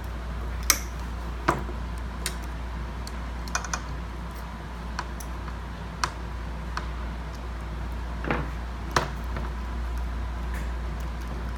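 About ten irregular light clicks and taps from small hard parts being handled while a replacement neon sign transformer and its wires are fitted, over a steady low hum.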